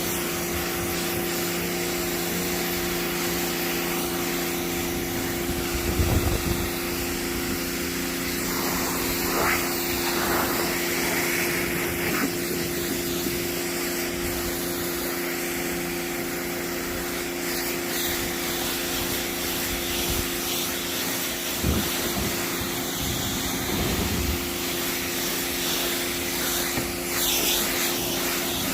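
A small electric motor running steadily, a constant hum at a fixed pitch over a hiss, with a few brief knocks and rubs along the way.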